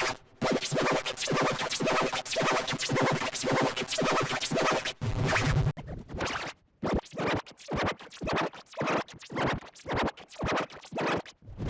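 Sparta-remix electronic music: a fast beat with a sample chopped into rapid stuttering repeats that sound like record scratching, broken by a couple of short drop-outs.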